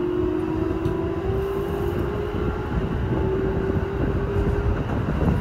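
Keikyu New 1000 series electric train running, heard from inside the front car: rumble of wheels on rail with the whine of its Toyo Denki IGBT VVVF inverter drive and traction motors, slowly rising in pitch.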